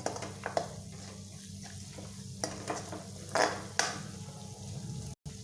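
Spiced onion-free masala gravy frying in oil in a kadhai, sizzling, while a spoon stirs it with several scrapes against the pan, just after coriander powder has gone in. The sound cuts out for an instant near the end.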